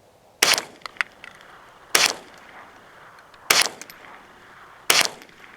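.22 LR firearm firing Browning 40-grain hyper-velocity rounds: four single shots at a slow, even pace, about one and a half seconds apart.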